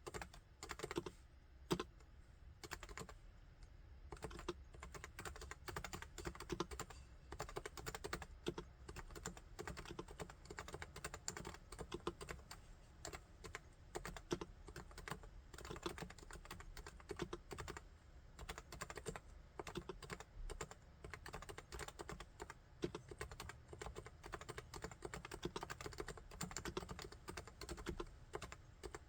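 Typing on a Topre Realforce R3 keyboard with electrostatic capacitive (Topre) switches: a steady run of fast, irregular keystrokes, with a few louder strokes in the first two seconds.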